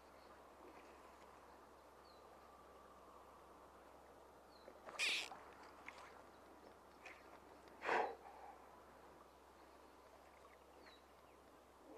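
Two short whooshes about three seconds apart, the swish of a fly line during a cast, over a few faint high bird chirps.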